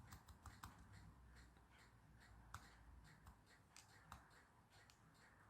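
Faint, irregular small clicks of a toy car's plastic on/off switch being worked back and forth to clean its dirty contacts, with light handling of the toy.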